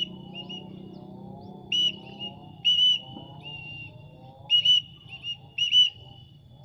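A series of short, high whistle blasts, about seven, single or in quick pairs, each held on one steady pitch. The pattern fits a handler whistling to call a trained pallow bird back.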